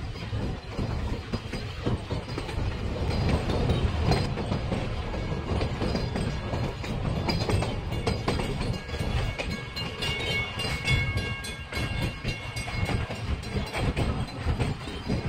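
Puffing Billy narrow-gauge steam train running on the track: a steady rumble with a constant clickety-clack of wheels over the rails, and a thin high squeal joining in for a few seconds about ten seconds in.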